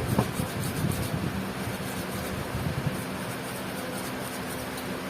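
Steady machine hum with a constant low tone, with a few low knocks and rumbles in the first three seconds.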